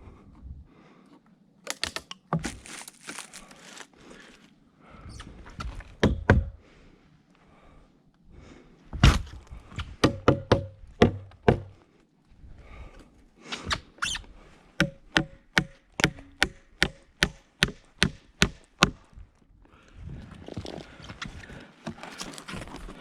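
Hammer driving nails into wood: scattered knocks and wood squeaks, then about halfway through a run of a dozen or so sharp, evenly spaced blows, about two to three a second.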